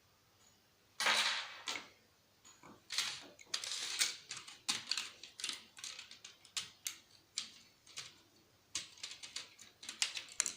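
Plastic and metal parts of a PlayStation 3 being handled and pried apart: irregular clicks, clatters and short scrapes, starting about a second in.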